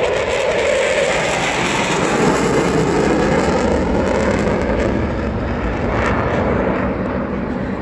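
Eurofighter Typhoon's twin EJ200 turbofans in reheat (afterburner) during a display pass: a loud, steady rushing jet noise.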